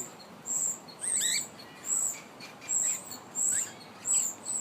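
Birds calling: short, high chirps repeated about every three-quarters of a second, with a brief rising whistle about a second in.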